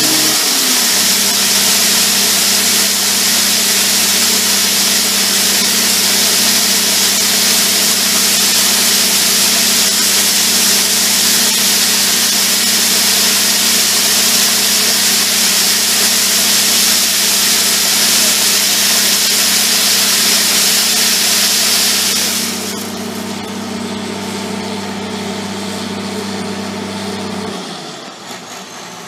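Farm machinery engine running steadily under a loud rushing hiss. Its note drops to a lower speed about a second in. The hiss cuts out a few seconds before the end, and the engine note stops shortly after.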